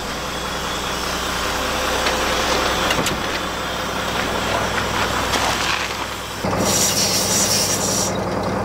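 School bus engine idling while compressed air hisses steadily from a leaking part on top of the main supply air tank of its air brake system. About six and a half seconds in, the hiss becomes louder and sharper, heard close up under the bus.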